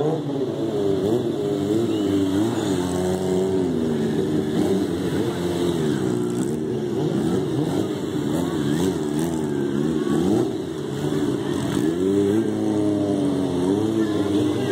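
Sportbike engine revving up and down again and again, its pitch rising and falling every second or so as the rider works the throttle through wheelie and stoppie stunts.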